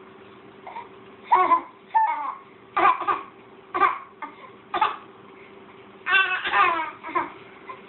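A young child's voice making a string of about eight short, pitched vocal sounds, roughly one a second, somewhere between fussing and playful fake coughs. A faint steady hum runs underneath.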